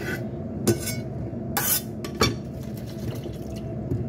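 Kitchen prep sounds: a cleaver knocking and scraping on a wooden chopping board as sliced carrot is swept into a steel bowl and set aside. There are several short knocks and one longer scrape, the sharpest knock a little past the middle.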